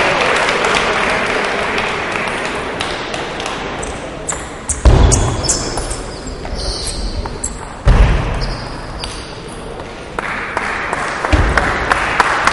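Table tennis ball clicking off bats and table during play, a run of sharp ticks, with two heavy thuds about five and eight seconds in. A broad wash of hall noise sits under the start and again near the end.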